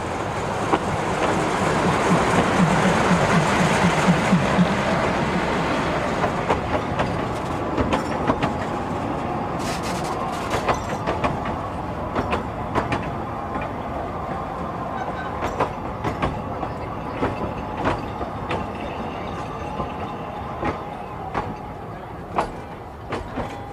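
Narrow-gauge train running along the track: a steady rumble that swells over the first few seconds, then sharp clicks and knocks of the wheels over the rails.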